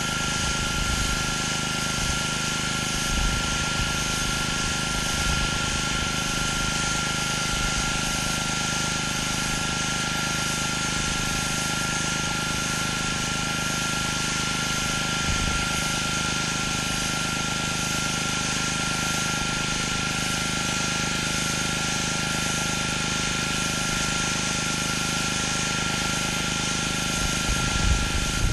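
Gas pressure washer running steadily under load: engine and pump drone with a constant high tone and the hiss of high-pressure water spraying on concrete. A few low bumps near the end.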